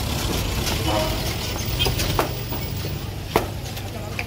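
Street noise: a vehicle engine idling as a steady low rumble under scattered voices, with a few sharp knocks, the loudest about three and a half seconds in.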